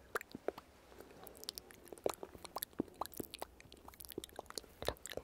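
Irregular crisp clicks and soft taps right at the microphone, the close-up sounds of ASMR makeup application.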